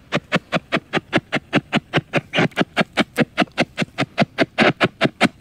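Spirit box radio scanning through stations, a fast even chopping of short bursts of radio sound, about five a second.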